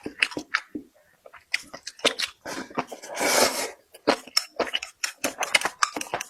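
Close-miked eating: crunching and chewing with many quick clicks and smacks, and a longer burst of noise about three seconds in.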